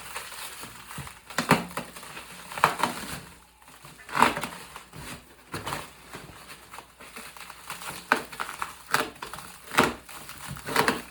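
Cardboard box and plastic packing material being pulled open and crumpled by hand, in irregular crackling, rustling strokes with several louder crunches.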